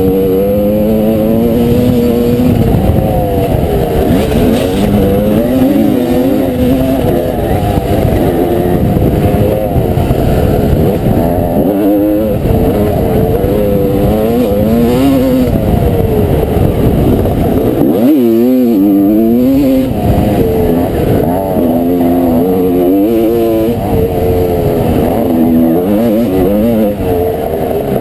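1989 Honda CR250R's single-cylinder two-stroke engine being ridden hard on a motocross track, heard from on the bike: its pitch climbs and drops again and again as the rider works the throttle and gears, with the throttle briefly shut off about two-thirds of the way through.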